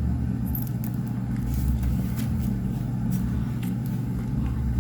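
A steady low hum, with a few light clicks and rustles from a steelbook case and its art card being handled.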